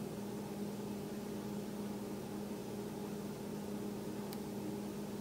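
Steady low hum over a faint hiss, a background room or electrical hum, with one faint tick about four seconds in.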